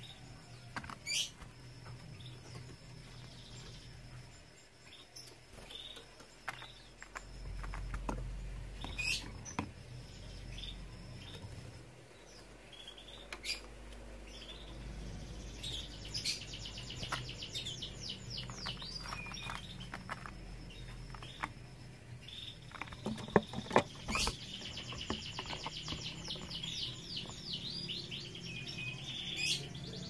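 Caged canaries chirping, with two runs of rapid trilled song, one about halfway through and one near the end. Sharp taps and clicks from the birds moving about the cage come in between, the loudest shortly before the second trill.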